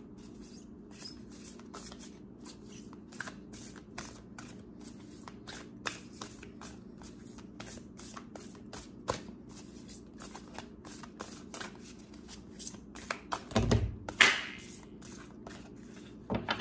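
A deck of oracle message cards being shuffled hand over hand: a long run of quick, soft card slaps and flicks. Near the end there are a couple of heavier knocks and a louder rustle, over a faint steady low hum.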